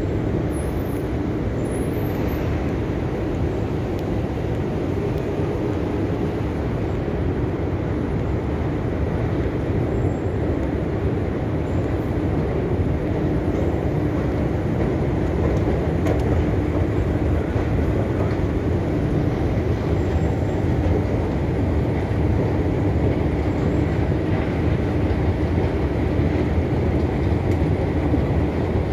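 Steady low rumble with a faint hum, the machinery and ventilation noise of an underground metro station, growing slightly louder about halfway through.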